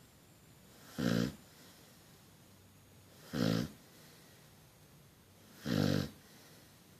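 Sleeping dog snoring: three short snores, each about half a second long, a little over two seconds apart.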